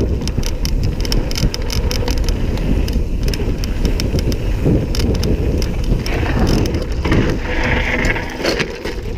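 Mountain bike descending a gravel trail: wind buffeting the handlebar-mounted camera's microphone over tyres crunching on loose stones, with constant clicking and rattling of the bike over the bumps. A harsher hiss comes about seven and a half seconds in, and the noise eases near the end.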